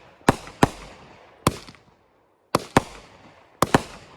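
Consumer fireworks going off: seven sharp bangs at uneven intervals, mostly in quick pairs, each trailing off in a short echo, with a half-second lull near the middle.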